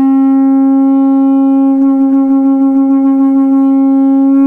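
Padma shankh conch shell blown without its mouthpiece: one long steady note, held throughout, with a quick slight wavering in the middle.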